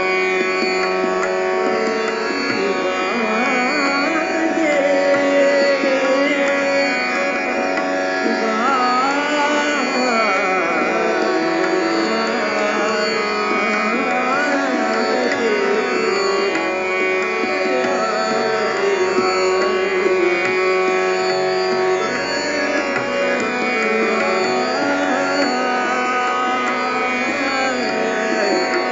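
Hindustani semi-classical singing in Raag Bhairavi, a dadra. A male voice sings long, ornamented phrases that glide up and down over a steady drone.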